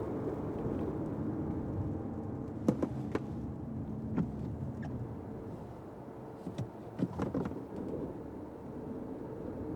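Fiat 500X being driven in the rain: a steady low rumble of road and engine noise. It is broken by a few irregular sharp taps and clicks, a cluster about three seconds in and another about seven seconds in.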